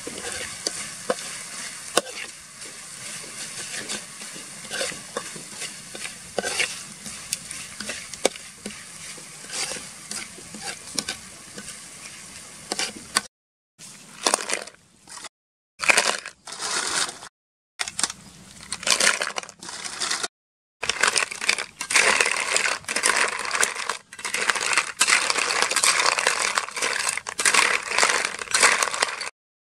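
Chopped chilies and garlic sizzling in oil in a metal wok while a metal spoon scrapes and stirs. After a few abrupt cuts, a wok full of snails in their shells is stirred with the spoon: a loud, dense clatter of shells against the pan.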